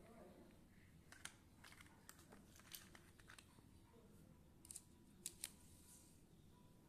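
Near silence with faint rustling and a scattering of light clicks from small plastic toy cars being handled and set down on a cloth, the two sharpest clicks close together about five seconds in.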